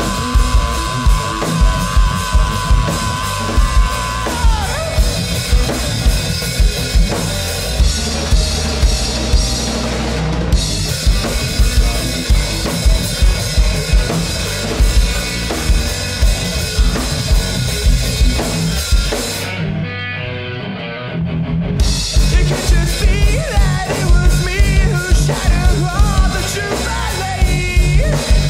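Rock band playing an instrumental passage live: drum kit with steady hits, bass guitar and electric guitar. About two-thirds of the way in, the cymbals and high end drop out for about two seconds, then the full band comes back in.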